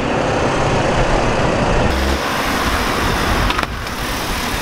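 Red Vauxhall Corsa hatchback driving slowly across a car park and pulling into a space: a steady noisy rush of engine and tyres over a heavy low rumble, dropping a little near the end.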